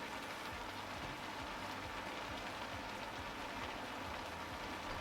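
Food cooking in a hot pot on the stove, a steady hissing crackle.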